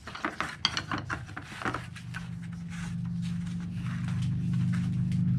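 Thin teak strips clicking and clacking against each other and the bench as they are laid out side by side. From about two seconds in, a low steady engine hum comes in and slowly grows louder.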